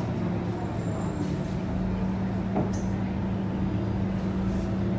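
Scania K230UB bus's five-cylinder diesel engine running steadily as the bus drives along, heard from inside the passenger cabin. A brief click about two and a half seconds in.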